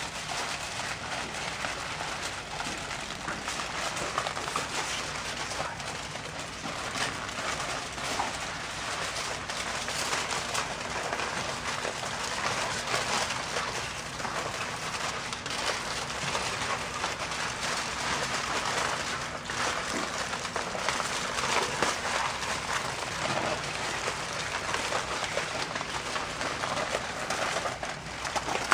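Aluminium foil crinkling and rustling continuously as several sheets are pressed and folded by hand over cups and plates, a dense crackle of many small crinkles.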